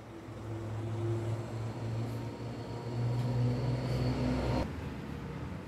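A motor running with a steady low hum, cutting off suddenly about four and a half seconds in.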